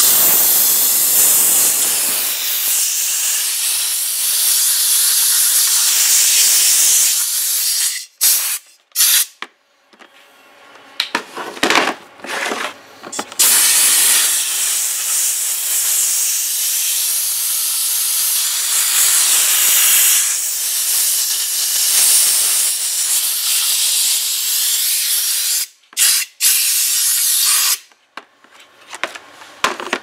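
Compressed-air blowgun hissing as it blasts air through the jets of a dishwasher's lower spray arm, clearing out clogged gunk and paper. There is one long blast of about seven seconds, then a few short blasts, then a second long blast of about twelve seconds, and more short blasts near the end.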